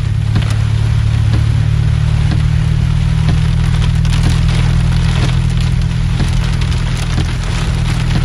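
Heavy rain pelting a car's roof and windshield, heard from inside the cabin: a dense patter of drop impacts over a steady low rumble.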